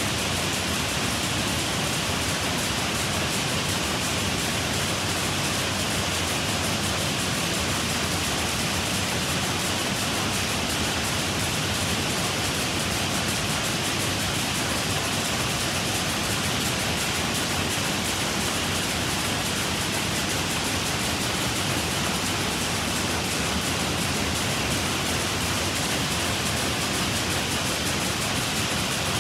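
Many jacquard rapier power looms running at once in a weaving shed, a dense, steady, unbroken mechanical clatter.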